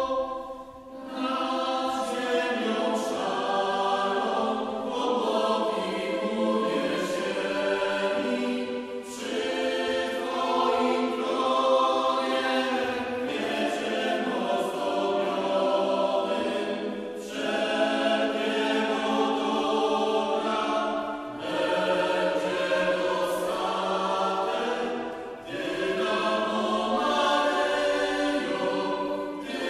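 Mixed choir singing a sacred song, accompanied by an orchestra of violins, cellos and double bass. The music moves in phrases with short pauses between them.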